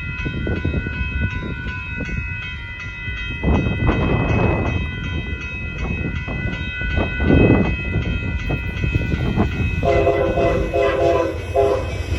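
Amtrak passenger train approaching a road crossing, with the crossing bell ringing steadily and the train's rumble growing. Near the end the locomotive horn sounds a quick run of about five short blasts.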